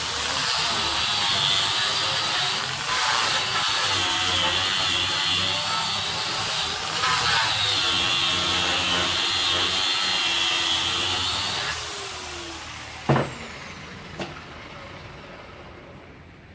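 Handheld electric disc sander running against the wood of a door frame, its high whine dipping briefly as it is pressed on and easing off again. About twelve seconds in it is switched off and the whine falls away as the disc spins down, followed by a sharp knock and a lighter one as the tool is set down.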